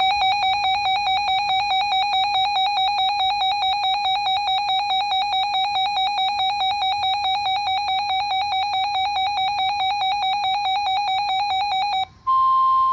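Weather radio's built-in alert alarm: a loud, rapidly pulsing electronic beep for about twelve seconds, signalling that a new warning, here a severe thunderstorm warning, has been received. About twelve seconds in it cuts off and gives way to the broadcast's steady single-pitch warning alarm tone.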